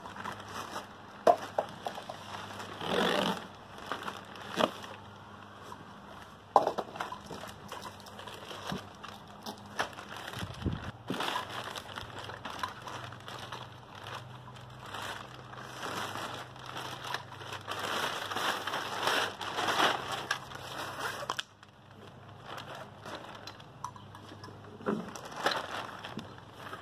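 Clear plastic packaging crinkling and crackling as a bike rack is pulled out of its wrapping and box by hand, with a few louder knocks and scrapes.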